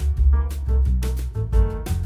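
Instrumental background music: sustained melodic notes over a deep bass line, with a regular drum beat.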